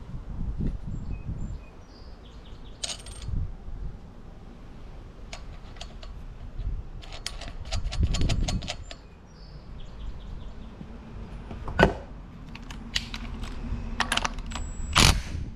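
Metal parts clinking and clicking as the nut and washer are fitted onto an outboard's flywheel by hand. Near the end comes a short burst from a cordless impact tool running the flywheel nut down.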